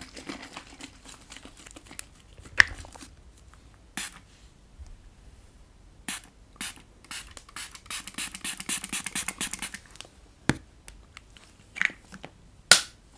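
Pump spray bottle of hair product spritzing mist onto hair in a series of short, sharp sprays, with fingers scratching and rubbing through the hair; the busiest stretch is a run of quick crackly hiss a little past halfway.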